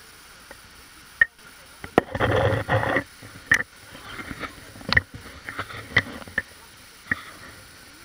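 Handling noise on a hand-held action camera as it is swung around: a loud rubbing scrape, then several sharp knocks and clicks on the housing. Underneath is the steady rush of the waterfall and its stream.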